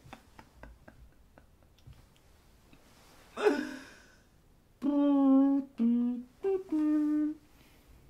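A man humming: four held notes at different pitches, the last two short and higher. Before them come faint clicks and, about three and a half seconds in, one short breathy vocal outburst.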